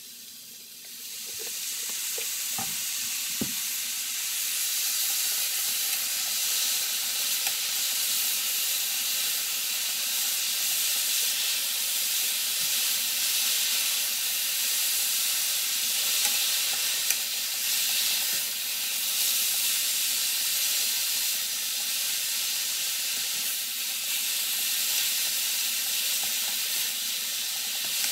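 Carrots frying in a hot pan: a steady sizzle that swells up about a second in and keeps going, with a couple of light knocks soon after it starts.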